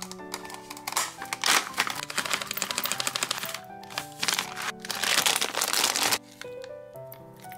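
Plastic food bags crinkling as seeds are poured from a pouch and a bag of sliced almonds is handled, loud and continuous until it stops sharply about six seconds in. Background music plays under it.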